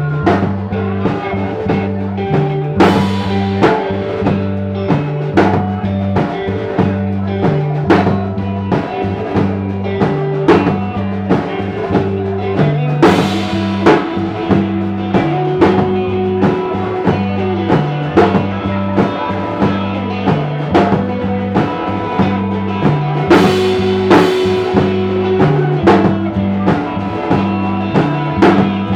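Live rock band playing an instrumental passage: drum kit keeping a steady beat of about two hits a second, with a cymbal crash roughly every ten seconds, under a bass guitar line and guitars. No singing.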